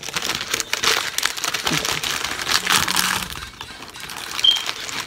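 Paper food wrapper crinkling and crackling as it is handled, busiest in the first three seconds, then quieter. A brief high squeak sounds near the end.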